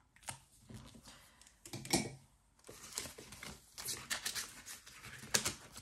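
Soft rustling and small clicks and taps of a cardstock savings challenge card and a plastic ring-binder sleeve being handled, busiest in the second half.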